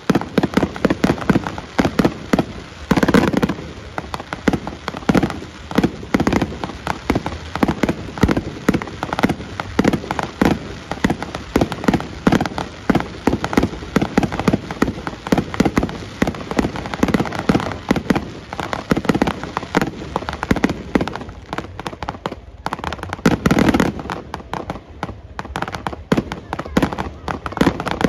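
Fireworks finale: a dense, rapid string of bangs and crackling bursts, several a second, with no let-up, heaviest about three seconds in and again near the end.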